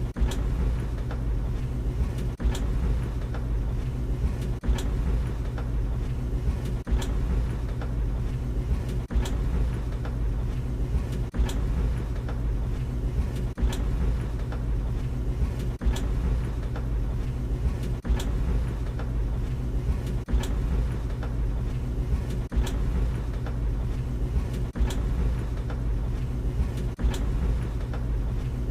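Tumble dryer running with a steady low hum, and a sharp knock about every two seconds as the drum turns.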